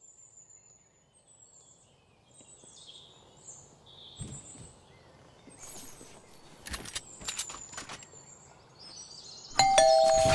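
Birds chirping over faint outdoor ambience, with a few sharp clicks in the middle, then near the end a two-note doorbell chime, ding-dong, rings out loudly and keeps ringing.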